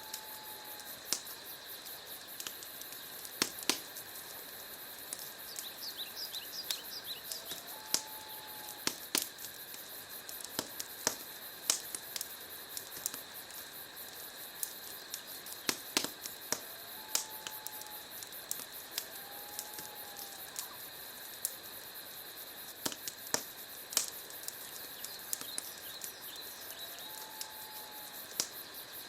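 Wood fire crackling: irregular sharp pops and snaps, a few of them louder, over a steady hiss. A few short, faint whistles come through now and then.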